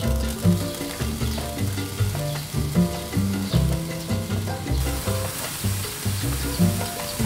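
Slices of ham sizzling on a hot charcoal grill grate, the sizzle growing louder about five seconds in as more slices go down. Background music with a steady bass line plays throughout.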